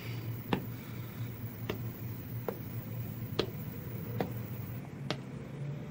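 Soft, evenly spaced ticks, a little more than one a second, over a low steady hum.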